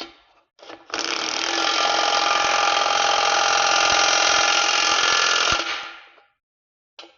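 DeWalt impact wrench on its highest setting, running in two short blips and then hammering steadily for about four and a half seconds as it drives a bolt tight, winding down about five and a half seconds in. A few short blips follow near the end.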